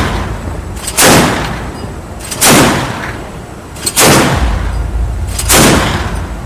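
MK 38 25 mm naval machine gun firing single shots, four in all, about a second and a half apart, each a loud crack with a short rumbling tail. A low steady rumble of wind and ship noise sits underneath.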